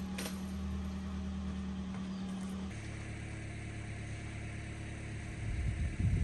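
Car engine running with a steady low hum. The hum changes abruptly to a slightly different pitch a little under three seconds in, and a louder low rumble comes in near the end.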